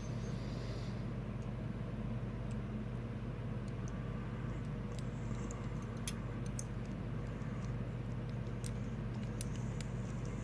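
Steady low background hum with a few faint, sharp clicks scattered through it, from small lock pins and tools being handled during the disassembly of a pin-tumbler lock cylinder.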